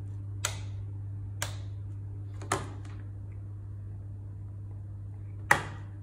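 A power strip's rocker switch clicked three times about a second apart, then a single louder click near the end, over a steady low hum: power being switched on and off to a projector that stays dead.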